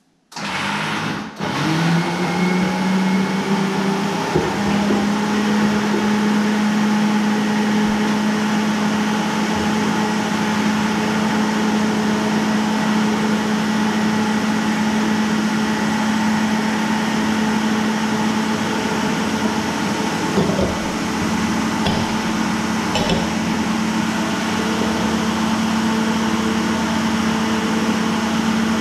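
Electric stand mixer motor running steadily while mixing boilie paste from eggs, flours and fish meal; it starts up right away, rising in pitch for about a second before settling into a loud, even hum.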